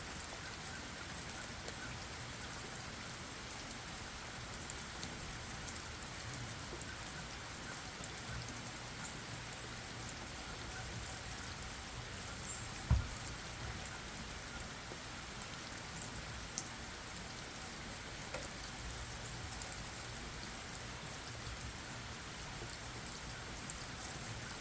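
Steady gentle rain falling on leaves and ground, with scattered drip ticks. A single short low thump sounds about halfway through.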